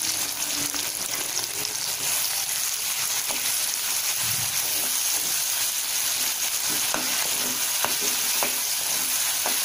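Small onions, garlic and chopped tomato sizzling in gingelly oil in a non-stick kadai while a steel spoon stirs them, with a few light taps and scrapes of the spoon against the pan.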